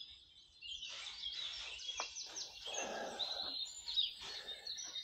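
Small songbirds chirping and singing, many quick high notes overlapping, with some soft low rustling underneath.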